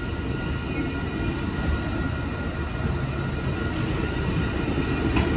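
Amtrak Superliner double-deck passenger cars rolling past close by: a steady rumble of wheels on rail, with faint, thin, high whining tones over it.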